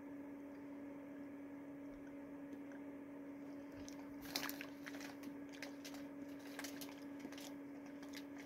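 Plastic snack packaging being handled, a run of irregular crinkles and clicks starting about halfway through, the sharpest just after it begins. A steady low hum underneath.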